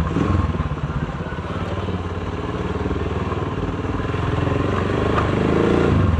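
Xplorer 200R motorcycle engine running at low speed while the bike is ridden over a bumpy alley path, the revs rising briefly near the end.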